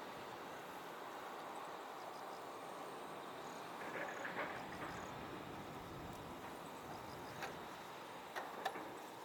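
Faint, steady rumble and hiss of a distant approaching YS-11 turboprop, its two Rolls-Royce Dart engines heard from far off. A few short chirps and clicks sound about four seconds in and again near the end.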